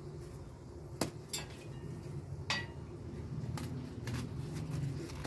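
Light clinks and taps on a ceramic plate as fried doughnuts are handled and rolled in powdered sugar: two sharper ones near the start, one more halfway through, then fainter ticks, over a steady low hum.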